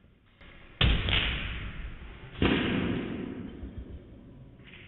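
Monkey gun firing its projectile at the hanging stuffed-monkey target: two sharp bangs about a second and a half apart, each ringing out in the room and dying away over about a second.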